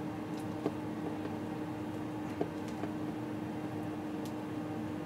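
Steady low hum of room tone, with a few faint clicks of hard plastic as a Hasbro Power Rangers Lightning Collection figure's bow accessory is worked into its hand.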